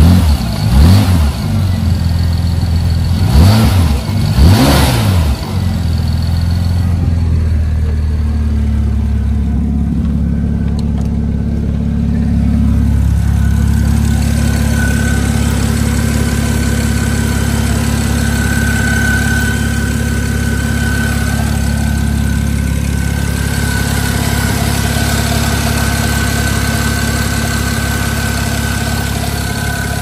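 BMW 335i's N54 twin-turbo inline-six engine revved briefly about three times, then settling into a steady idle. A thin high whine sits over the idle through the second half.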